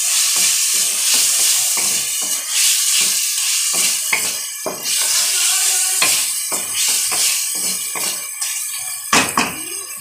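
A wooden spatula scrapes and knocks against an aluminium pan as spiced chicken pieces are stir-fried, over a steady high sizzle. The strokes come irregularly, about two a second, with a sharper knock near the end.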